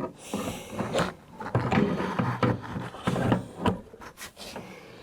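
Irregular clicks, knocks and scraping of hands and tools working on a Jeep XJ rear door's latch and lock actuator mechanism inside the door.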